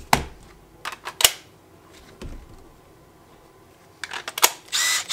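Makita 18V lithium-ion battery packs being handled and slid onto a cordless impact driver: several sharp plastic clicks and knocks, a dull thud, and a louder brief noisy burst near the end.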